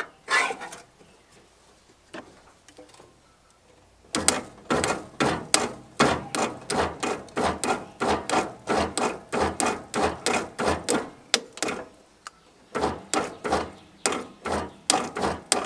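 Hand tool working on a riding mower engine that will not turn over: sharp metallic strokes, about three a second, starting about four seconds in, with a short pause near the end.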